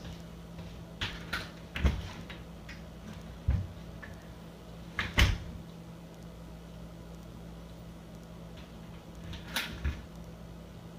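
Footsteps and handling at a door, then a door shutting with a loud knock about five seconds in, followed by two quieter clicks near the end, over a steady low room hum.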